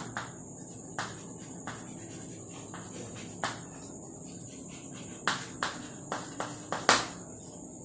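Chalk writing on a blackboard: irregular short taps and scrapes as each word is written, with a sharper tap about seven seconds in. A faint steady high-pitched tone runs underneath.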